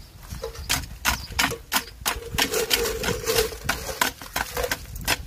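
A steel tamping rod jabbed repeatedly into coarse aggregate in a steel cylindrical measure, with sharp clinks of rod on stone about three times a second. This is one layer being rodded for the compacted bulk density test.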